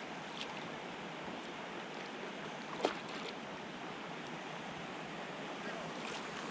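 Steady rush of flowing water, with a few faint clicks and one sharper click about three seconds in.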